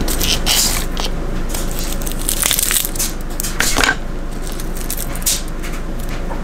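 Dry, papery garlic skins crackling and rustling as cloves are peeled by hand on a plastic cutting board, in short irregular bursts over a steady low hum.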